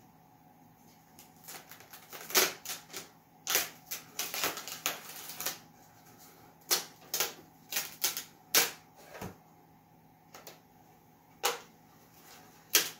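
Irregular sharp cracks and clicks as a freshly glued, laser-cut birch-plywood model boat fuselage is worked loose from its building board, with glue spots and tape letting go. There is a dense cluster of snaps around the middle, then single cracks spaced a second or so apart.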